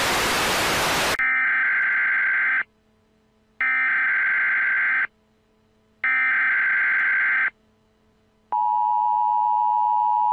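Television static hiss that cuts off about a second in, followed by three Emergency Alert System (SAME) data bursts, each about a second and a half long with a short gap between them. About three seconds before the end, the steady two-tone EAS attention signal begins.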